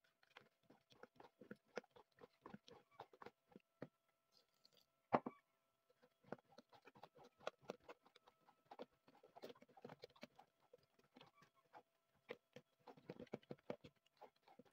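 Blue plastic spatula stirring a thick, wet SLS and sodium sulphate paste in a clear bowl: faint, irregular clicks and scrapes, with one louder knock about five seconds in.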